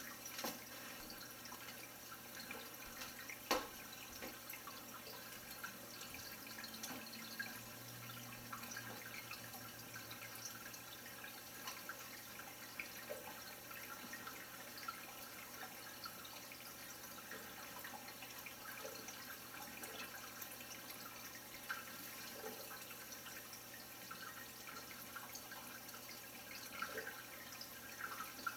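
Reef aquarium water circulating: a steady trickle and bubbling, with scattered small drips and clicks and one sharper click a few seconds in, over a faint low hum.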